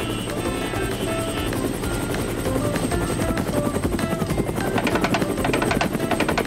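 Cartoon helicopter sound effect: a fast, steady rotor chopping that grows louder about halfway through, over background music with a melody.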